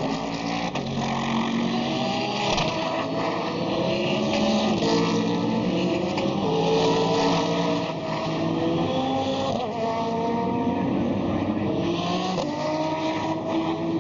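Several GT race cars accelerating past in a pack, their overlapping engine notes rising again and again as they pull through the gears.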